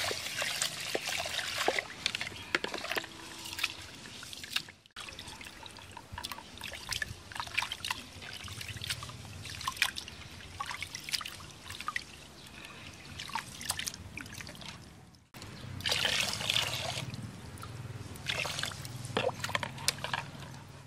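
Rice being washed by hand in an aluminium pot: water poured in from a jug, then sloshing and swishing as fingers stir and rub the grains, with small splashes and clicks against the pot. The sound breaks off abruptly twice, where the video is cut.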